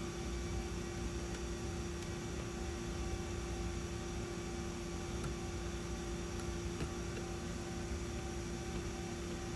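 Steady electrical hum with a constant hiss and a few faint ticks; no distinct tool sound stands out.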